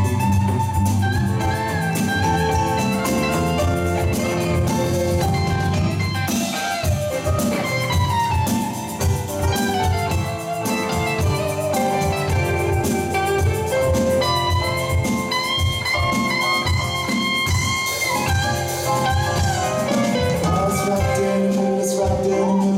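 A live rock band plays an instrumental passage: an electric guitar plays a lead line with bent notes over electric bass and drum kit.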